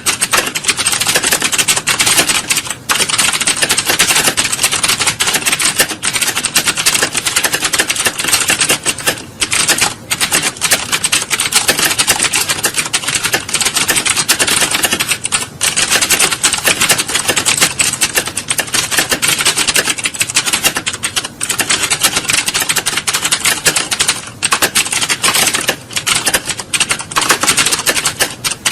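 Computer keyboards in an exam hall being typed on fast, a dense, continuous clatter of keystrokes with only a few momentary lulls.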